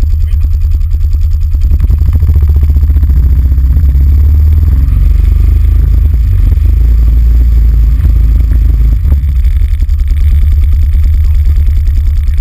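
Can-Am Renegade 800 ATV engine running near idle, heard close through a camera mounted on the machine as a deep, steady throb. It gets fuller about two seconds in and eases back near nine seconds.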